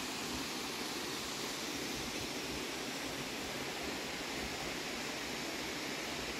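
The 104 ft DeSoto Falls plunging into its pool, a steady, even rush of falling water with the flow a little low.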